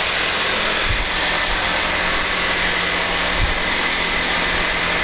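Steady machine noise: a constant low motor hum under an even hiss, with a couple of faint low thumps.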